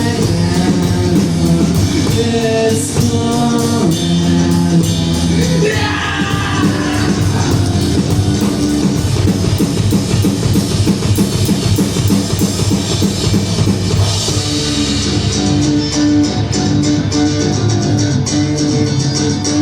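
Rock music with a drum kit, guitar and singing.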